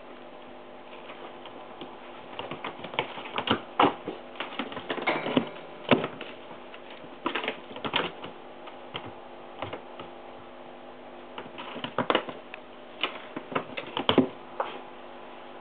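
Irregular light thumps, taps and scrabbles of a kitten's paws on a wooden floor as it jumps, pounces and chases a wand toy, in scattered clusters over a steady faint hum.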